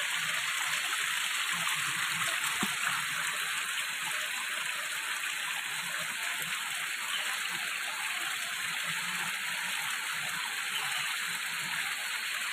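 A small rocky stream running, a steady rushing of water over stones.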